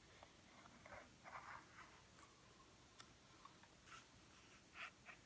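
Faint pencil scratching on paper in several short strokes as it traces around the base of a cardboard tube, with a couple of light ticks.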